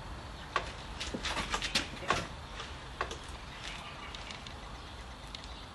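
Steel coil spring on a rod clamped in a vise, worked in and out by hand: a scatter of light metallic clicks and rattles, busiest between about half a second and three seconds in.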